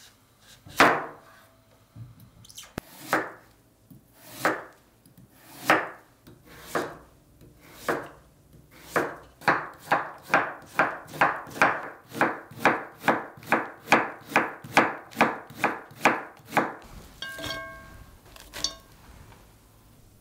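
A kitchen knife cutting through Korean radish onto a wooden cutting board. It starts with slow single chops, about one a second, and then about eight seconds in speeds up to a steady run of about three chops a second as the radish is cut into matchsticks. Near the end there are a couple of short, light ringing clinks.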